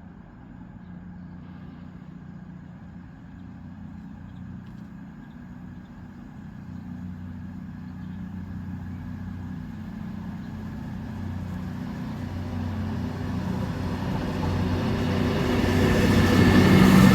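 A train approaching, its low steady hum growing louder throughout, with higher rail noise building up near the end as it draws close.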